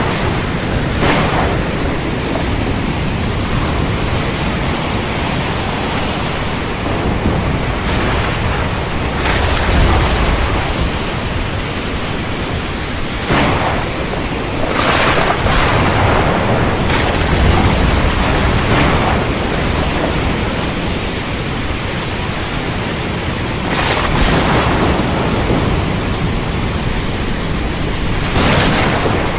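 Steady heavy rain with thunder: low rolling rumbles and several sharper cracks scattered through it.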